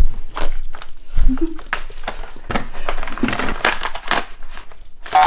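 A Shiba Inu nosing and pawing at a thin plastic treat tray, the plastic crinkling and clicking in a run of quick taps and rustles, busiest about three to four seconds in.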